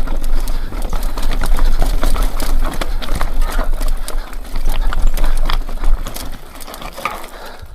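Mountain bike clattering and rattling over rough rock, with many irregular sharp knocks from the tyres, frame and chain over a steady low rumble of wind on the microphone. It quietens near the end.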